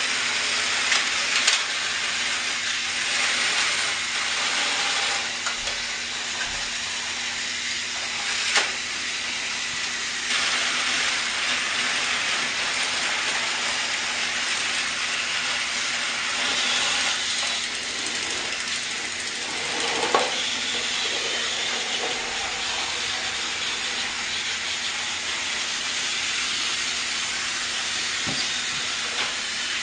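Battery-powered toy train running on its track: a steady hissing whir with a faint constant hum, broken by a couple of brief clicks or knocks about 8 and 20 seconds in.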